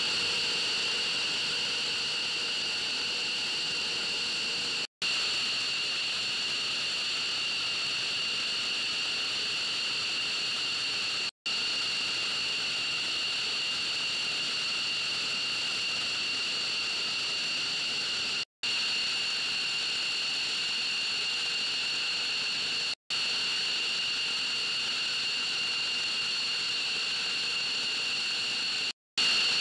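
F-15C Eagle's twin turbofan engines idling on the ramp: a steady high whine at two pitches over a rushing noise, broken by a few brief dropouts.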